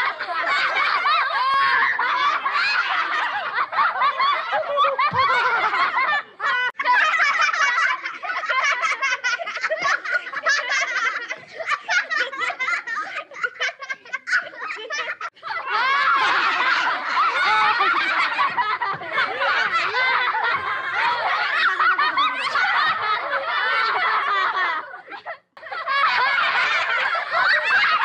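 High-pitched laughter and giggling that goes on almost without a break, with fast chuckling pulses in the middle stretch and brief pauses about six, fifteen and twenty-five seconds in.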